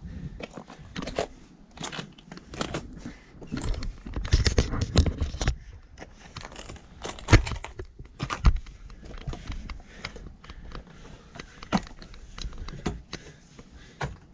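A hiker scrambling over rock, with boots scuffing and crunching, hands and gear scraping, and clothing and pack rustling close to a body-worn camera. The noises come at uneven intervals, busiest about four to five seconds in, with the sharpest knock about halfway through.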